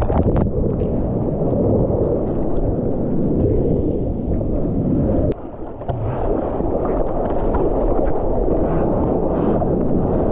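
Seawater rushing against a GoPro with the camera submerged: a loud, muffled, dull rush. About five seconds in it drops away with a click, and the brighter slosh and splash of waves at the water's surface takes over.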